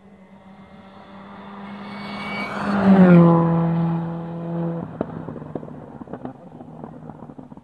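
A rally car approaching at speed and passing close by, its engine note building to a peak about three seconds in and dropping in pitch as it goes past, then holding a steady lower note as it drives away. About two seconds later the engine note cuts off and a string of sharp pops follows as it fades.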